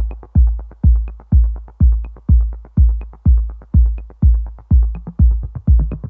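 Background electronic dance music: a heavy drum-machine kick drum on every beat, about two a second, with crisp hi-hat ticks between the kicks.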